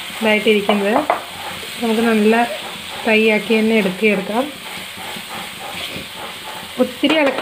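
A wooden spatula stirring thick chicken liver masala in a sizzling nonstick frying pan, with groups of short squeaky tones as the spatula scrapes and squelches through the gravy; the strokes ease off for a few seconds past the middle.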